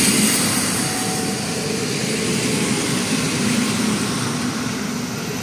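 Passenger train carriages rolling slowly past as the train pulls out: a steady rumble of wheels on the rails.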